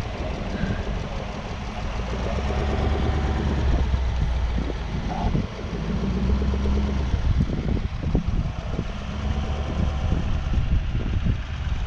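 Mercedes G-Class V8 engine running at low revs as the off-roader crawls past over grass, the engine note rising and falling a little with the throttle.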